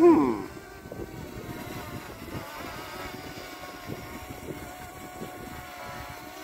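Wind rumbling on the microphone under a faint, steady, motor-like hum of several tones. Right at the start comes a short, loud pitched sound that slides down in pitch.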